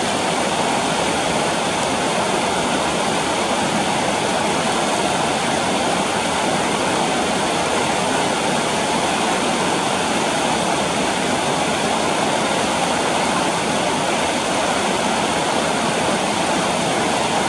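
Fast, shallow mountain stream rushing over rocks, a steady even noise throughout.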